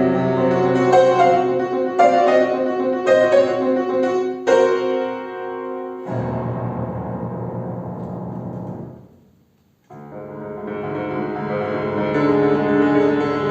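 Piano playing a toccata: struck chords and notes at first, then from about six seconds in a dense stretch of rapid repeated notes that fades away almost to silence. The playing starts again about ten seconds in and grows louder.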